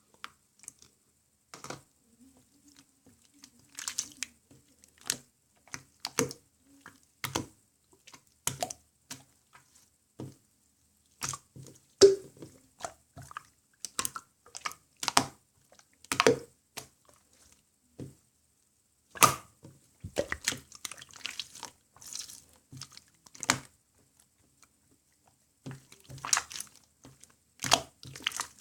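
Yellow slime being squeezed and pressed by hand, making irregular wet clicks and pops, about one or two a second with short pauses.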